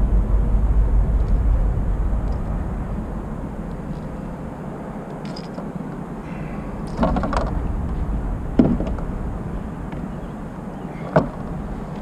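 Steady low rumble of wind on the microphone, with handling noise from unhooking a bass in a landing net aboard a fishing kayak: a few clicks about seven seconds in, a sharp knock about eight and a half seconds in and another near the end.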